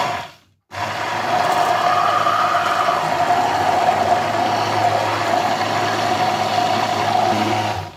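Braun 600-watt immersion blender running steadily in a narrow beaker, whipping an oil-and-mustard dressing into an emulsion while orange juice is added. A brief loud burst comes at the very start; the motor starts about a second in and cuts off just before the end.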